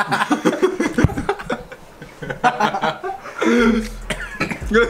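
Young men laughing and coughing, mixed with indistinct talk; the coughing comes from the burn of very hot chicken wings.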